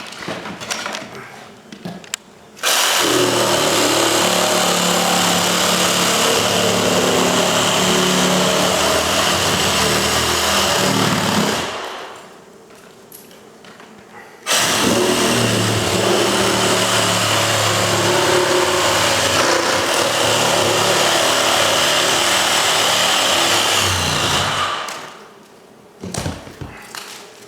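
Handheld power saw cutting into an interior wall to open up a hive cavity, run twice: about nine seconds, a short pause, then about ten seconds more. Each run starts abruptly and winds down at the end.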